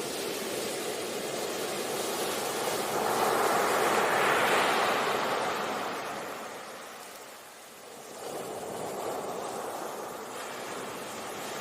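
Sea waves washing onto a beach. The surf noise swells to a peak about four seconds in, ebbs to a lull a few seconds later, then builds again with the next wave.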